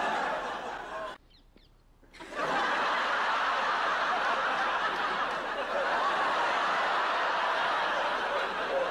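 Studio audience laughing, broken by about a second of near silence a little over a second in, then long, steady laughter.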